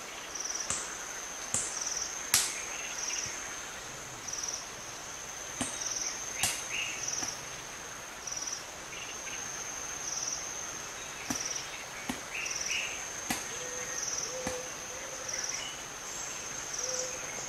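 Chimpanzees cracking oil palm nuts with stone hammers on stone anvils: irregular sharp stone-on-stone knocks, the loudest about two seconds in, over a steady pulsing chirr of insects.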